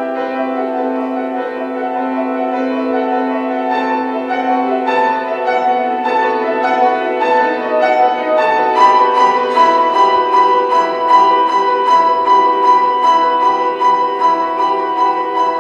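Classical piano music over a sustained accompaniment, building gradually louder. About nine seconds in, a high note is held while quick repeated notes sound above it.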